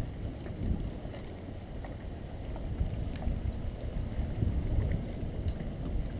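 Wind buffeting the microphone of a GoPro Hero 2 in an open skeleton housing on a moving bicycle: a steady low rumbling rush, with scattered faint clicks.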